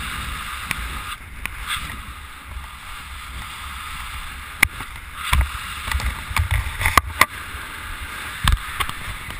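Wind buffeting the microphone of a skydiver's head-mounted camera during a descent under an open parachute: a steady rush with low rumble, broken after about four and a half seconds by scattered sharp clicks and knocks.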